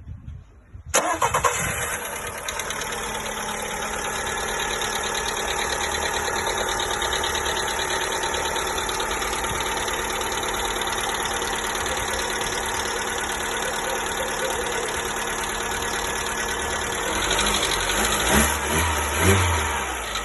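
A 1.4 MPI petrol engine cranks and starts from cold about a second in, then idles with a fast tapping. This is the cold-start tapping that new hydraulic lifters and rocker arms did not cure and fresh oil only quietens for a while. Near the end the revs rise briefly twice.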